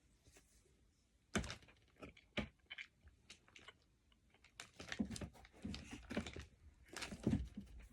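Mouth noises of someone eating a piece of jelly: short, quiet smacks and clicks, a few at first and then a denser run about halfway through.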